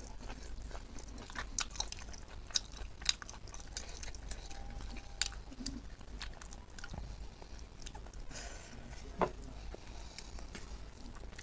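Close-up mouth sounds of a person chewing and biting curried pork leg, with wet smacking clicks scattered throughout and one louder click about nine seconds in.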